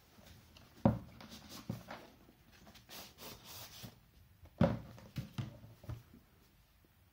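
Hands handling a rigid cardboard product box on a tabletop: two sharp knocks of the box against the table, about a second in and again about four and a half seconds in, among smaller taps, scrapes and rustling of the cardboard.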